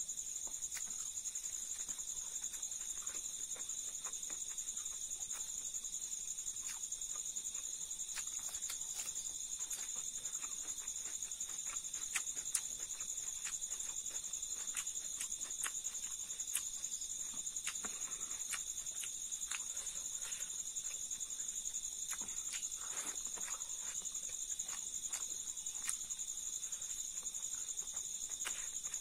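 Steady high-pitched insect chirring throughout, with scattered small clicks and smacks from eating by hand: fingers working rice and chewing fried silkworms.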